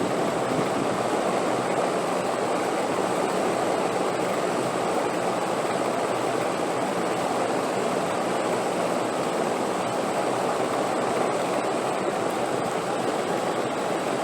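Steady wind sound: an even rushing noise with no gusts, breaks or changes in level, and a faint thin high tone held throughout.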